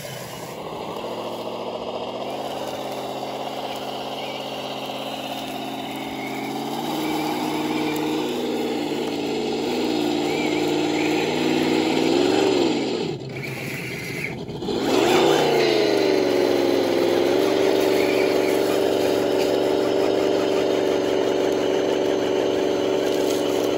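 Electric motor and geared drivetrain of a ROC Hobby Willys jeep RC crawler, whining under throttle as it climbs rocks. The pitch steps up and sags, cuts out for about two seconds a little past halfway, then comes back and holds steady.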